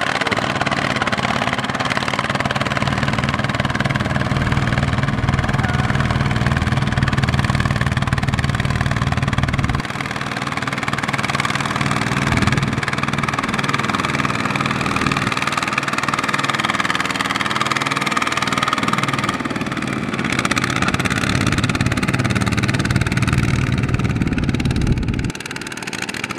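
Single-cylinder diesel engine of a Kubota ZT155 walking tractor running under heavy load as it hauls a trailer of rice sacks through deep mud, its note rising and falling as it labours. It dips briefly about ten seconds in and again near the end.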